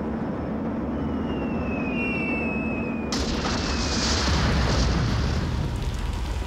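Cartoon bombing-raid sound effects: a steady drone of bomber engines with descending whistles of falling bombs, then a sudden explosion about three seconds in, followed by a heavy rumble of blasts.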